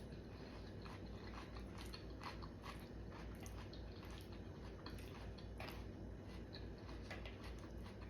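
Faint close-up chewing and mouth sounds of a person eating, irregular little clicks and crunches, over a low steady hum.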